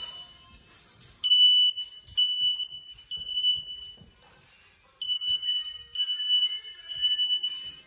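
Smoke alarm sounding: a loud, high-pitched beeping that comes in repeating runs with a pause of about a second between them. It was set off by a near house fire.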